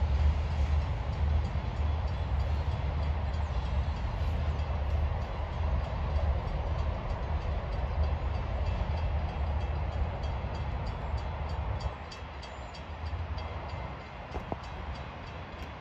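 BNSF local freight train rolling along the tracks with a steady low rumble that drops away about twelve seconds in, leaving a couple of faint knocks near the end.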